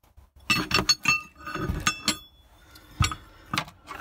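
Cleaned steel gearbox selector rails and selector forks from a David Brown 990 tractor clinking against one another as they are handled and laid down: a run of metallic clinks and knocks, some leaving a short ringing tone, the loudest about three seconds in.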